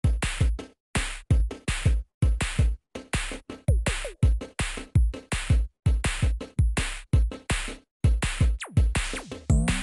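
Background music: an electronic drum-machine beat, fast and steady, with a deep kick drum under it.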